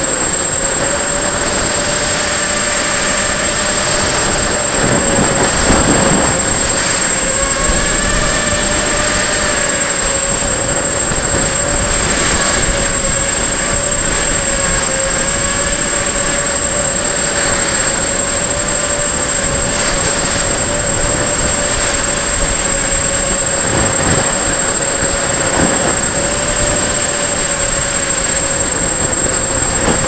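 Brushless motors and propellers of a 250-size FPV quadcopter in flight, heard from its onboard camera: a steady whine that wavers slightly in pitch as the throttle changes, over a rush of air. A thin, steady high-pitched tone runs underneath.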